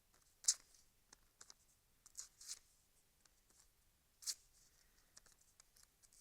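Razor-sharp Vosteed Morgan chef knife slicing through paper: a few short, faint swishes. The loudest comes about half a second in, with another about four seconds in.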